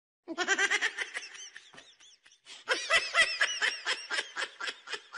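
A person laughing in rapid 'ha-ha' bursts: one run of laughter starting about a quarter second in, then a second, louder run from about three seconds in that fades toward the end.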